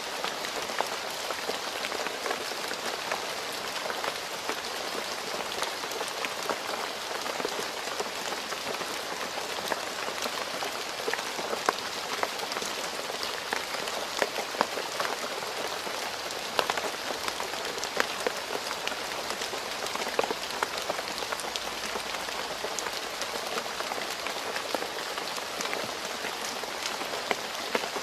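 Steady rain falling on a road surface, a constant hiss with many close, distinct drop splashes.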